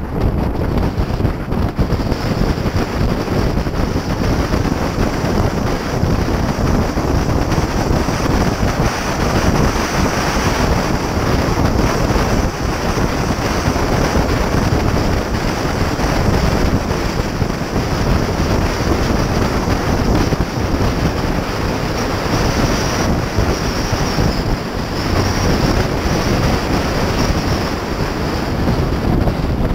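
Continuous wind noise buffeting the microphone of an action camera on a Porsche Cayman S driving at highway speed, with the car's running noise underneath.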